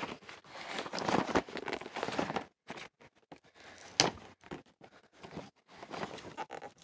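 Toy packaging being handled and pulled at: irregular rustling and crinkling, with a sharp snap about four seconds in.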